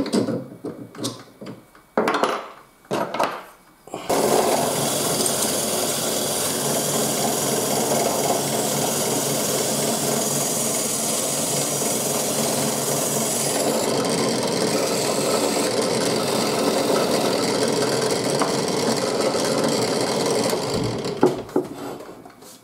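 A few clicks and knocks as a stack of plywood discs is fitted into a drill press chuck. About four seconds in, the benchtop drill press starts and the spinning plywood discs are sanded true against sandpaper stuck to a board, a steady sanding rasp over the running press. It stops near the end, followed by a few knocks.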